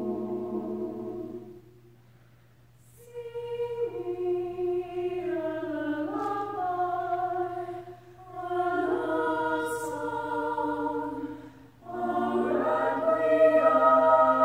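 Mixed choir of men's and women's voices singing a cappella. A held chord dies away about a second and a half in, then after a short pause the voices come back in with long sustained chords and brief breaks between phrases, growing louder over the last few seconds.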